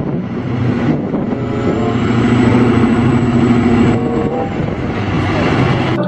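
Diesel engine of a large mining wheel loader running as it works a load of material: steady, loud engine noise with a low hum.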